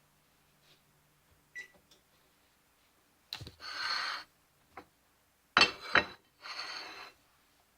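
Kitchen handling sounds: a few sharp knocks and clatters, with two short hissing rushes, each lasting under a second.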